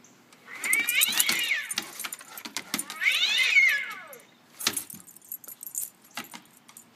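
Animated Halloween black cat toy letting out two electronic meowing yowls, each rising and then falling in pitch over about a second. Scattered rattling clicks run through and after them.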